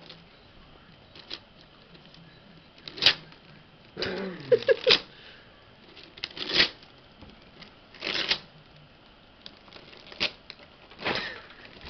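Gift-wrapping paper rustling and tearing in short, separate bursts as a toddler rips the wrapping and pulls at a present.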